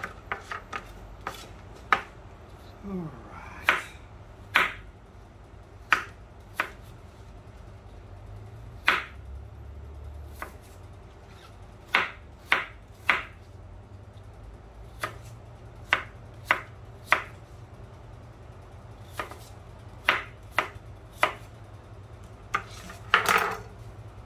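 Kitchen knife chopping apple pieces on a plastic cutting board: sharp, irregular knocks of the blade against the board, about one a second, with a longer, louder stroke near the end.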